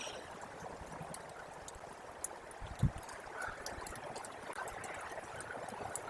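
Snowmelt water trickling steadily, with scattered faint ticks and one short low thud about three seconds in.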